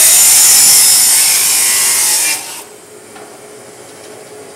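Abrasive cutoff saw (chop saw) cutting through steel tubing: a loud, steady grinding hiss that stops abruptly about two and a half seconds in, leaving a much quieter steady hum.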